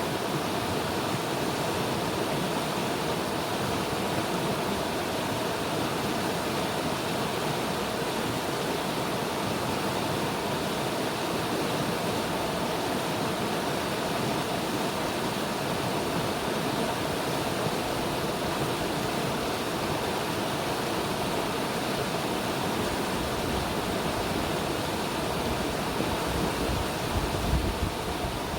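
River water rushing steadily. A low rumble builds in near the end.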